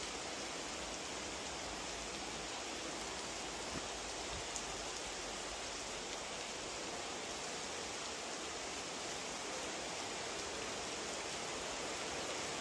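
Heavy rain falling steadily, an even hiss with no distinct events.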